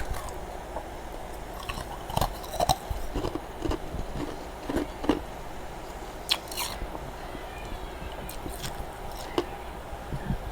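Freezer frost being chewed close to the microphone: irregular crisp crunches and crackles.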